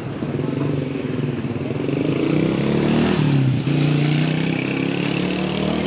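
A motor vehicle engine passing close on a city street, growing louder about two seconds in, its pitch rising and then dropping just past halfway.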